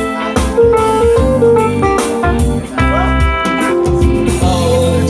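Live band playing an instrumental passage: a guitar carries the melody over bass and drums, with no singing.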